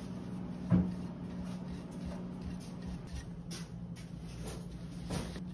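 Metal offset spatula spreading and scraping a thin crumb coat of cream over a sponge cake on a metal turntable. A sharp knock comes about a second in and a softer one near the end, over a steady low hum.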